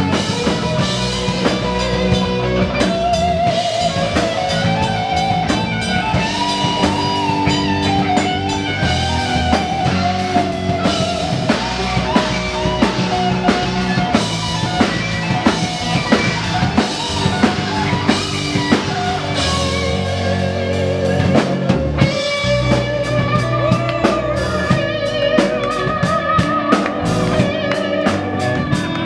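Heavy metal band playing live: a distorted electric guitar lead with bends and vibrato over rhythm guitar, bass and a busy drum kit, with no vocals.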